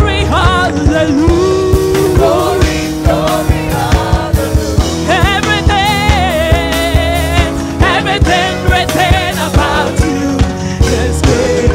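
Live gospel praise music: a wavering voice sings with wide vibrato over a band with a steady beat and sustained low notes.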